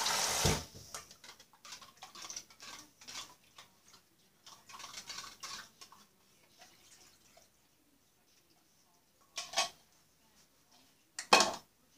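A kitchen utensil clinking and scraping against a soup can and a skillet while food is stirred, in quick uneven strikes. A short rush of tap water at the very start, and two louder knocks near the end.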